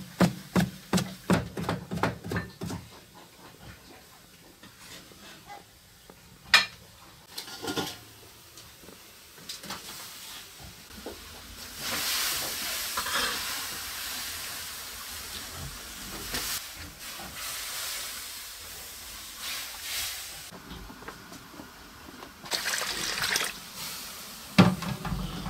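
A cleaver chopping pickled ginger and chilies on a wooden board, about three quick strikes a second, stopping after a couple of seconds. Later comes a steady hiss of steam and water from a large wok of greens being stirred, with a few clatters of utensils near the end.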